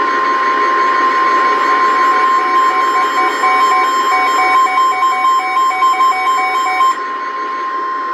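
NOAA Weather Radio's 1050 Hz warning alarm tone: one steady high tone over radio hiss, with a separate rhythmic beeping layered on it from about two and a half seconds in until about seven seconds. The tone is the signal that announces a weather warning broadcast.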